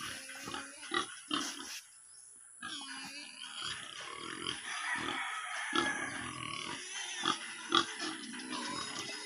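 Steel spade chopping into soil several times while digging a planting hole, with the sharpest strikes about a second in and again near the end. From about three seconds in, a farm animal's noisy calls carry on underneath.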